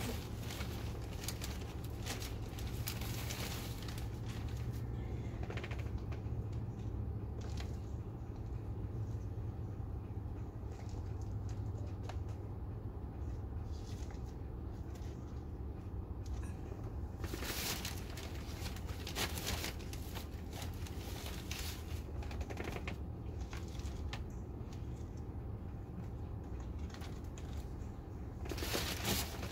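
Potting soil poured from a plastic container into cut plastic-bottle planters, pattering and rustling in several short bursts, over a steady low rumble.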